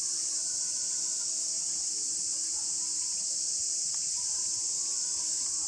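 Steady, high-pitched insect chorus that never breaks, with a faint low steady hum beneath it.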